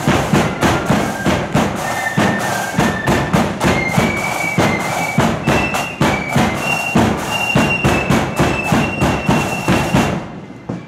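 Marching flute band playing a tune. Massed flutes carry a high melody over drums beating a steady march beat, and the music stops about ten seconds in.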